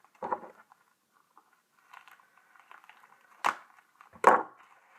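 A small product box being opened by hand: faint rustling and scraping of the packaging, with two sharp knocks or snaps near the end, the second louder.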